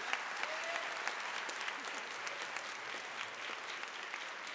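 Large seated audience applauding: many hands clapping at once in a dense, steady wash.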